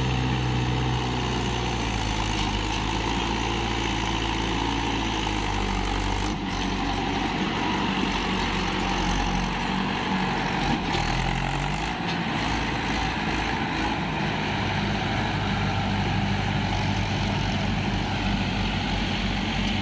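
Swaraj tractor's diesel engine running steadily under load as it pulls a fully loaded trolley through deep mud, the sound shifting abruptly at about six and twelve seconds.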